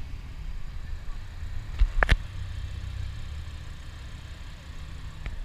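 Low steady rumble of a car engine idling, with two sharp knocks close together about two seconds in and a fainter click near the end.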